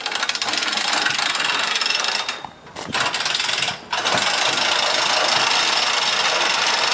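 Hand-cranked winches on a portable boat lift ratcheting with rapid clicking as the lift raises a sailboat. The clicking stops briefly twice, about two and a half and four seconds in.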